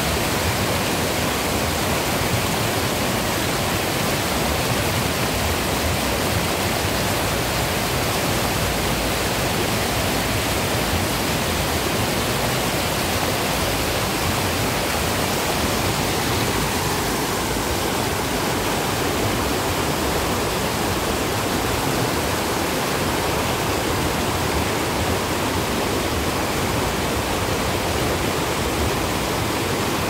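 White water rushing steadily down a stepped concrete weir in a river, an even, unbroken rush of tumbling water.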